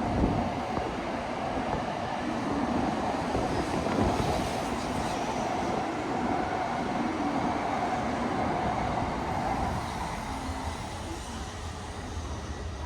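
Tokaido Shinkansen train running, a steady rushing noise with a faint hum through it, easing off somewhat over the last few seconds.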